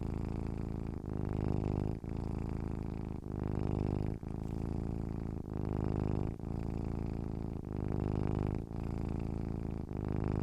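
Domestic cat purring steadily and low. The purr comes in cycles of about a second, each broken by a short dip as the cat switches between breathing in and breathing out.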